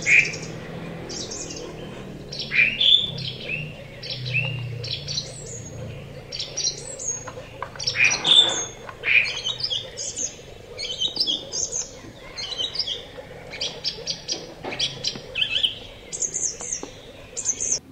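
Small birds chirping and calling, many short high chirps and quick falling calls in irregular runs throughout.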